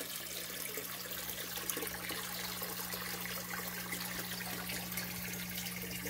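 Water trickling and splashing steadily into a goldfish tank, with bubbles breaking at the surface, over a steady low electric hum.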